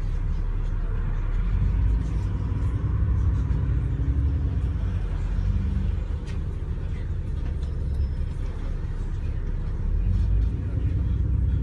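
Double-decker bus heard from inside on the move: a steady low rumble of engine and road, with the engine note rising near the end as the bus picks up speed.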